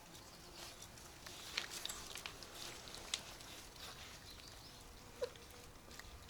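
Five-week-old Belgian Malinois puppies eating, with soft irregular chomping and smacking clicks and one brief squeak about five seconds in.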